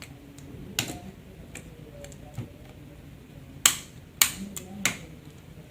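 Sharp plastic clicks and snaps as a prying tool works the Samsung Galaxy A70's housing free of the display: one about a second in, then three louder ones close together about two-thirds through.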